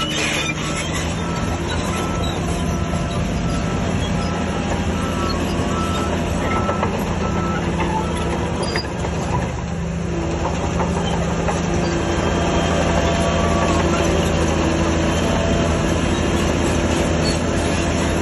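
Crawler bulldozer's diesel engine running steadily under load, with track and undercarriage clatter. A reversing alarm beeps at an even pace through the first half and then stops.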